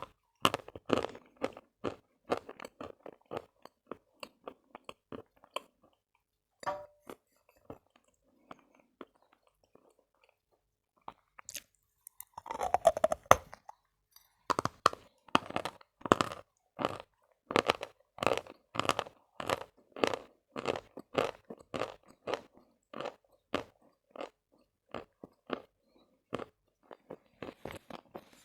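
Close-up crunching and chewing of Khrapovsky edible chalk, short crisp crunches that thin out and stop for several seconds in the first half. A louder, denser burst of crunching comes about halfway, then steady chewing crunches about two a second.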